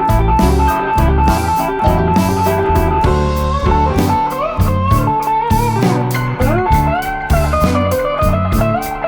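Background music: a lead guitar line with bending notes over a bass line and a steady beat.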